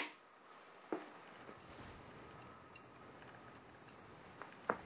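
Turn-signal beeper of an X19 pocket bike sounding while the LED indicators flash: one high-pitched steady beep repeating about once a second, each beep lasting most of that second. A few faint clicks come through between the beeps.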